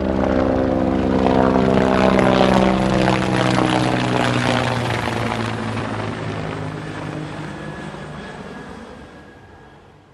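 A propeller aircraft droning as it passes, loudest in the first few seconds and then fading steadily away.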